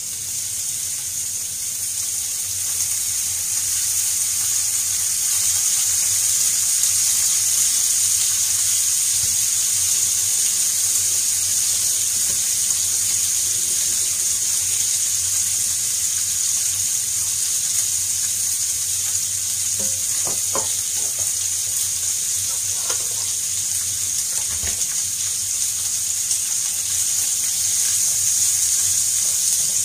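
Beef ribs sizzling in hot oil in a frying pan: a steady high hiss that builds over the first few seconds as the pieces go in, then holds. A few light knocks about two-thirds of the way through.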